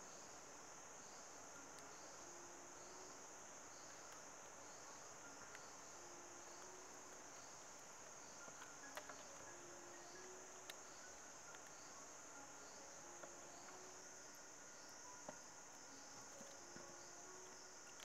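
Steady high-pitched insect chorus of crickets or cicadas, pulsing gently and evenly, with a faint low note recurring every second or two. A few light clicks about halfway through and again later, from the bamboo being handled.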